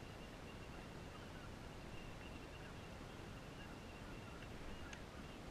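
Steady outdoor background noise, mostly wind on the microphone over open water, with a faint thin high tone and a couple of light clicks near the end.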